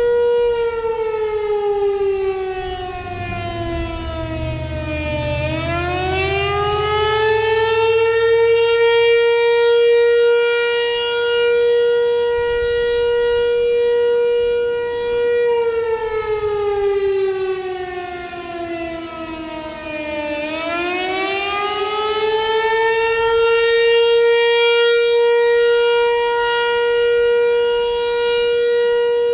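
ASC T-128 Tempest outdoor warning siren sounding a custom attack signal. It holds a steady high tone, then slowly falls in pitch and swings back up, twice: the dips come about 5 and 20 seconds in.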